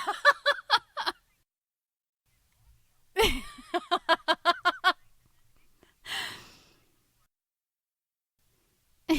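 A woman laughing in bouts of quick 'ha-ha' pulses, about five or six a second: one bout trails off right away, a second runs from about three to five seconds in, and a sharp breathy intake of breath comes around six seconds in, with silent pauses between.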